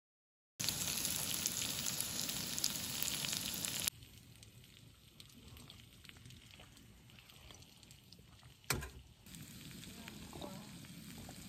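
Food sizzling and crackling in a hot pan for about three seconds, then cut to a much quieter, faint sizzle with a single sharp click a few seconds later.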